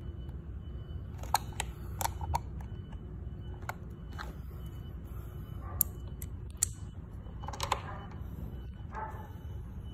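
Sharp, irregular clicks and taps of a metal screwdriver and a plastic seat-runner piece being worked against the rower's rail, over a steady low hum.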